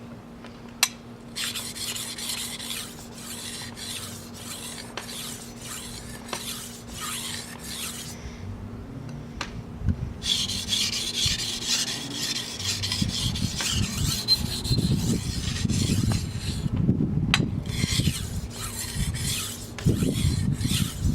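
Steel knife edge stroked back and forth on a coarse Naniwa Chosera 400-grit waterstone, with repeated gritty scraping strokes as the stone grinds out a small nick in the edge. A sharp click comes about a second in, and the strokes turn heavier and fuller in the second half.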